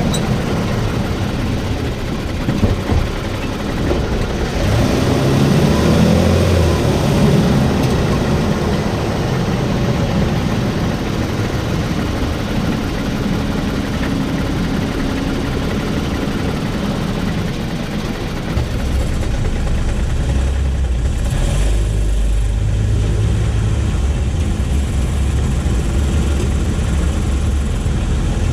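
2022 Toyota Tacoma running, a steady mix of engine and road noise. Its low engine drone shifts in pitch around five seconds in, and a deeper hum sets in about two-thirds of the way through.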